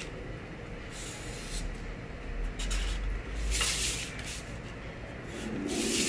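A plastic pattern-drafting curve ruler sliding and being shifted over brown pattern paper, with the paper rustling and a marker drawing along the ruler, in several short strokes; the loudest come about three and a half seconds in and near the end.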